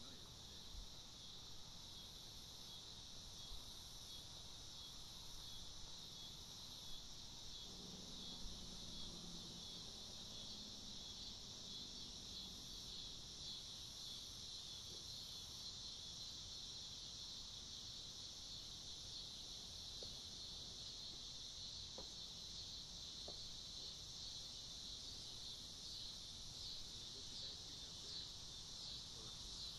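Steady, high-pitched chorus of insects trilling in a grassy field, with a fast, even pulse.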